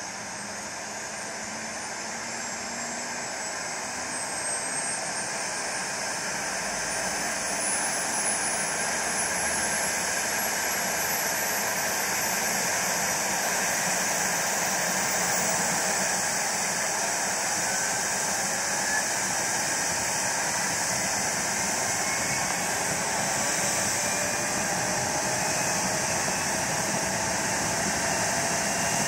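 BK 117 helicopter's twin turbine engines spooling up on the ground before lift-off. A high whine climbs steadily in pitch over the first dozen seconds while a steady rushing noise builds in loudness and then holds. Lower whines rise in pitch later on.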